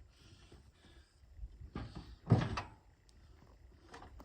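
A single sharp knock about two seconds in, with faint handling sounds before and after it.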